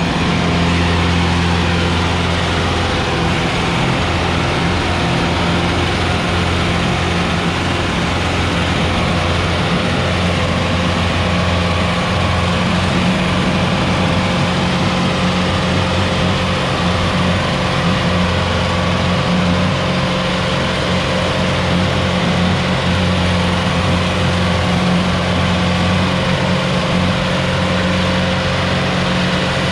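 Sonalika DI-750 III tractor's diesel engine running steadily under load as it pulls a heavily loaded sand trolley through loose sand.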